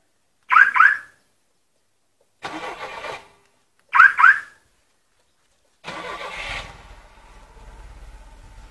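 Remote-start system on a carburetted VAZ 2107: the alarm siren gives a double chirp, a brief noise follows, and then another double chirp. About six seconds in, the starter cranks and the four-cylinder engine catches and settles into a steady idle.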